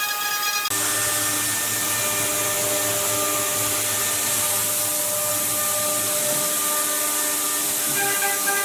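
Hiteccnc HTM1325 CNC router's high-speed spindle running with a steady whine over a hissing rush of cutting. The hiss turns fuller and brighter abruptly just under a second in.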